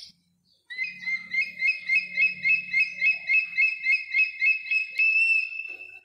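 Bald eagle calling: a rapid run of high, thin chirping notes, about three a second, ending in one short held note near the end.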